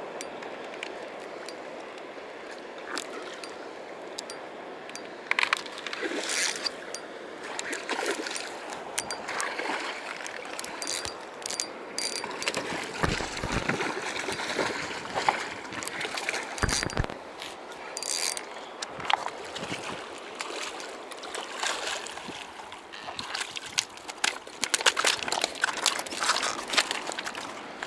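Fast river water running, with irregular splashes and clicks as a hooked pink salmon is reeled through the shallows onto a pebble bank. There are two dull thumps about halfway.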